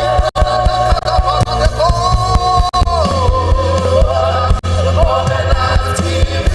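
Live gospel worship music: a singer holding long, gliding notes over a band with a steady drumbeat and heavy bass.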